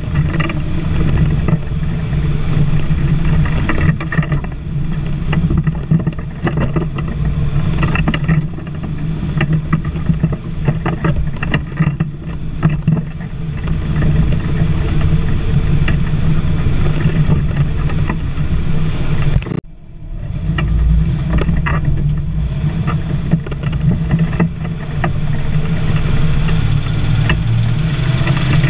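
STAR 660 military truck's six-cylinder petrol engine running under load, heard from inside the cab as the truck drives slowly over rough ground. Frequent knocks and rattles come from the cab and body. The engine sound drops away briefly about two-thirds of the way through, then comes back.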